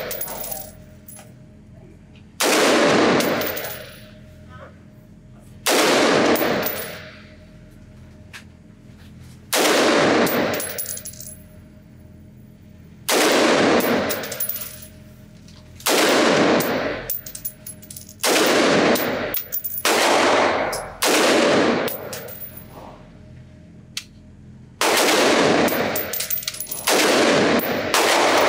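Noveske Infidel Gen. 4 AR-15 rifle (5.56 mm) fired semi-automatically in slow, deliberate bench-rest shots: about eleven shots spaced one to four seconds apart, a quick pair or triple in the middle. Each shot rings on for about a second in the echo of an indoor range.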